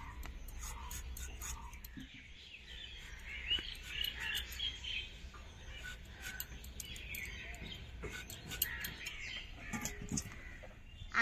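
Small birds chirping and twittering in the background, with faint crisp clicks as a potato is sliced against a boti, a curved blade fixed in a wooden base. Near the end there are a few soft thuds as the cut pieces go into a steel bowl of water.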